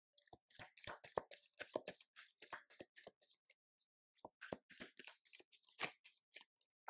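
Tarot deck shuffled by hand: a quick, soft patter of card clicks and snaps, with a short pause about halfway through.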